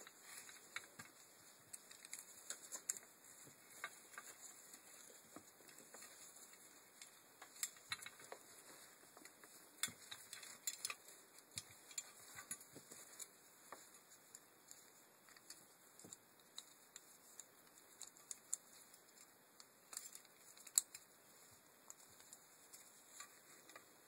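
Faint, irregular clicks and taps of a Land Rover Freelander rear window regulator's metal rail, plastic slider and cable being handled and fitted, with a few sharper clicks about 8, 10 and 20 seconds in.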